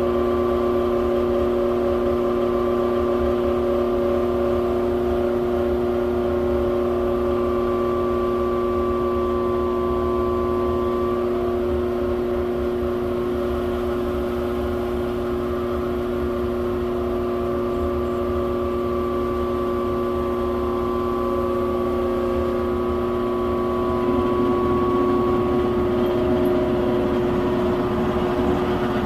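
Air-conditioning blower running with a steady hum made of several held tones over a low rumble: the blower noise that shows up when the AC is on. Near the end the lower tone turns rougher.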